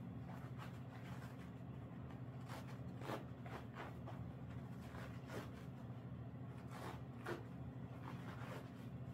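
Faint scratchy rustles of an elastic compression bandage being wrapped around a dog's foreleg, short soft scrapes coming every second or so over a steady low hum.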